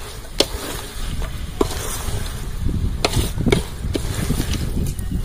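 Wooden spatula stirring masala-coated vegetables in a metal pot, with several sharp scrapes and knocks against the pot over a steady low rumble.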